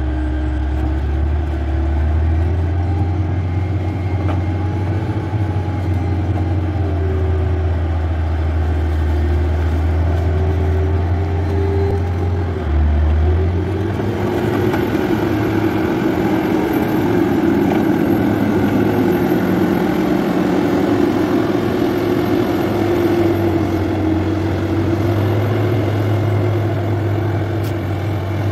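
Diesel engine of a motor grader running steadily as it works the soil, with a deep rumble that gives way to a busier, mid-pitched engine sound about halfway through.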